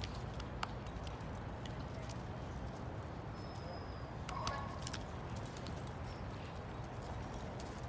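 Dog collar tags jingling faintly as the dogs move about, over a steady low background rumble.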